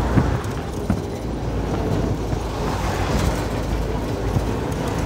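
KSRTC Limited Stop bus on the move: a steady engine and road rumble, with a few short knocks and rattles.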